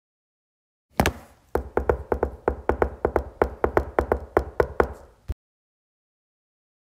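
Short burst of percussion music: a quick run of sharp drum hits, about five a second for some four seconds, that cuts off suddenly.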